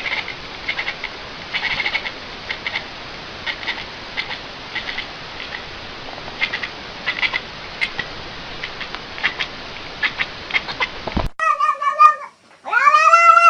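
Short high chirps repeating irregularly over a steady hiss. After a sudden cut about eleven seconds in, a cat meows twice, the second meow longer and louder.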